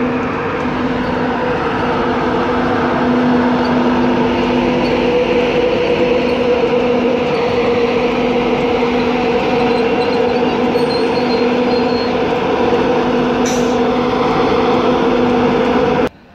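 LNER Class 91 electric locomotive running close by: a loud, steady rushing hum with two held tones an octave apart, which cuts off suddenly near the end.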